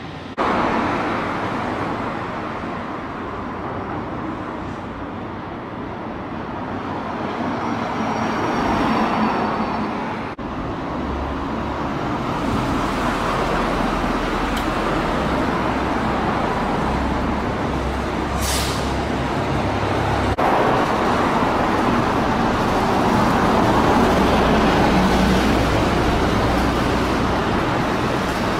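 Road traffic on an elevated spiral ramp: cars and trucks driving past, their noise swelling and fading, with sudden breaks about ten and twenty seconds in.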